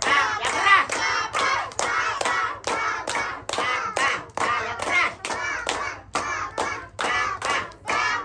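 Rhythmic hand clapping, about three claps a second, with voices chanting or singing along in time.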